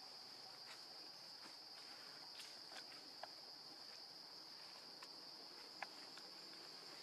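Faint, steady high-pitched insect drone in the forest, with a few soft clicks.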